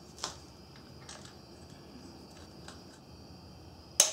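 Light clicks from a smooth timing-belt idler pulley and its bolt being fitted to a Subaru 2.5 L boxer engine. Near the end there is one sharp, loud metal click as a long wrench is set to the bolt.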